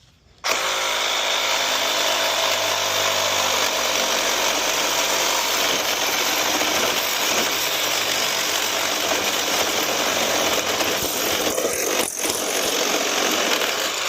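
Power cutting tool starting up about half a second in and running steadily while it cuts through the metal inside a tankless water heater to free the copper, stopping right at the end.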